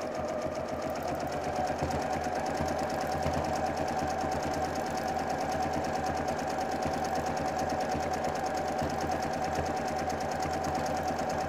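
Domestic sewing machine running steadily at speed during free-motion quilting, the needle stitching rapidly through a quilt sandwich, with a steady whine.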